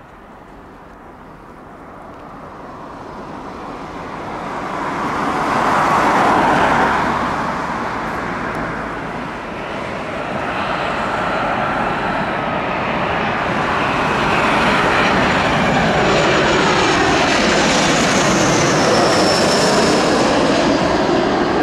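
Boeing 737 jet airliner on low final approach, its engines growing from a distant rush to a steady loud roar with a high whine that shifts in pitch as it passes close overhead.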